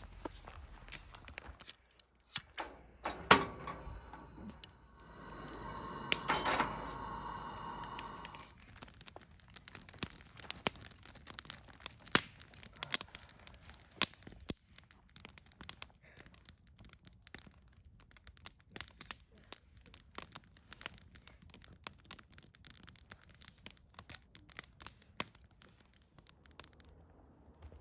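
Wood campfire crackling and popping, with many sharp snaps at uneven intervals. A few seconds in, a louder stretch carries a brief whistling hiss.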